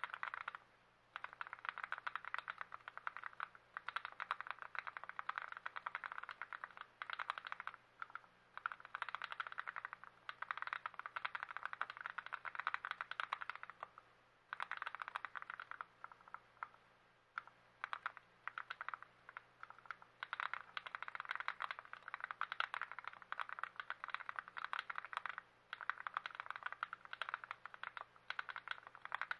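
Typing on a lubed and assembled TX66 custom mechanical keyboard: rapid keystroke clicks in runs of a few seconds, with short pauses between them.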